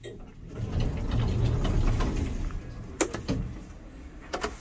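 Stainless-steel push buttons on a MidWestern lift's car operating panel clicking as they are pressed: a pair of sharp clicks about three seconds in and another pair near the end. A low rumble, the loudest sound, comes before the clicks.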